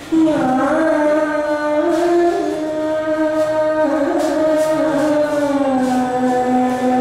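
A woman singing Hindustani classical vocal in raga Bhairav: long held notes joined by slow glides, starting a new phrase right at the beginning and settling on a lower held note near the end.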